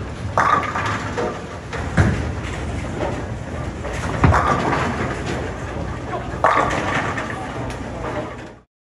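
Bowling alley sound at a tournament: a steady rumble of balls rolling on the lanes, with sharp thuds of balls landing on the lanes and the clatter of pins crashing, the heaviest thud and crash a little after four seconds, just after a ball is released. It cuts off abruptly near the end.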